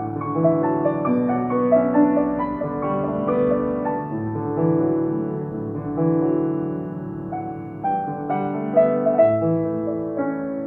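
Bechstein grand piano being played, with several notes and chords sounding and held at once. The piano is not yet tuned, and the sound comes through a phone's microphone.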